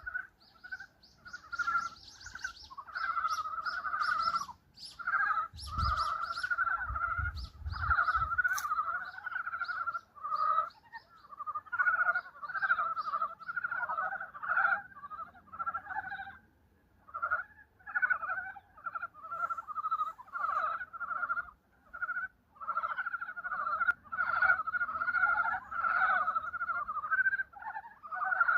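A chorus of mountain frogs (brown frogs) calling in early spring, many short pulsed croaks overlapping in clusters with only brief gaps. A few low bumps come about six to eight seconds in.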